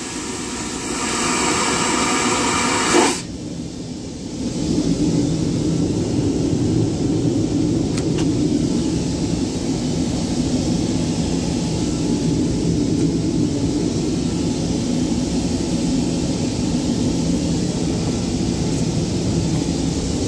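Airliner vacuum toilet finishing its flush: a loud rushing suction that cuts off sharply about three seconds in as the valve closes. After that, the steady low drone of the airliner cabin in flight.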